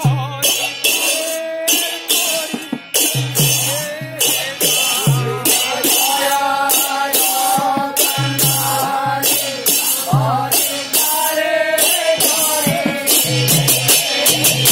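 Men singing a devotional song through microphones, with small hand cymbals struck in a fast steady rhythm, about three strikes a second, over a regular low drum beat.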